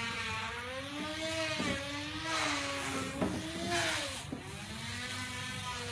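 Small electric motor of a homemade bottle-cap vacuum cleaner running with a whine whose pitch slowly wavers up and down as it sucks dust off a t-shirt, with a few light knocks.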